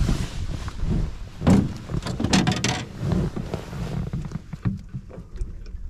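Knocks and rustling as a crappie is handled and pressed against the side of an aluminum boat to be measured. The loudest clatter comes a bit after a second in, over a steady low rumble of wind on the microphone.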